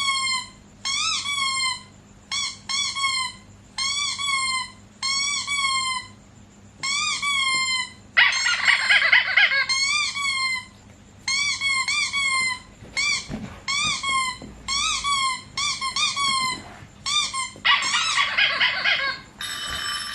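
High-pitched whining cries from a dog, each short call rising then falling in pitch, repeated about once a second, often in pairs. Twice, about eight seconds in and near the end, the cries turn into a longer, harsher squealing stretch.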